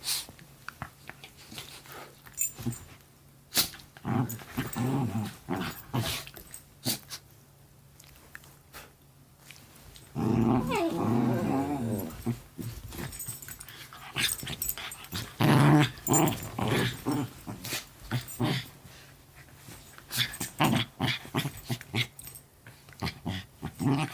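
Poodle-mix dogs making play growls and grumbling noises while they wrestle, with a long drawn-out growl about ten seconds in and another strong one a few seconds later. Short rustles and knocks from their paws and bodies on the bedding come in between.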